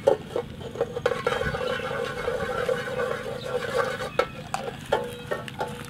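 A long wooden paddle stirring in a steel cooking pot, knocking against the pot with sharp clacks and scraping along it for a couple of seconds in the middle.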